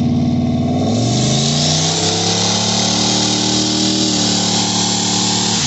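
Turbocharged car engine accelerating hard, heard from inside the cabin: the revs climb from about a second in, hold, dip about four seconds in and drop sharply near the end. A loud rushing hiss comes in with the acceleration and stays over the engine.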